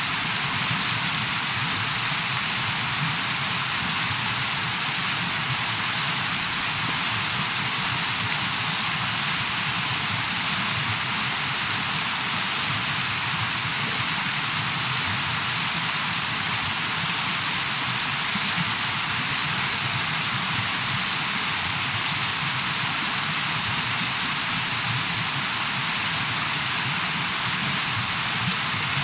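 Steady rush of river rapids, an even roar of white water with no break.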